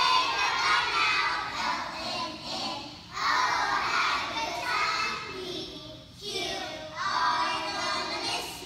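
A class of young children singing a song together in phrases a few seconds long, with electric keyboard accompaniment.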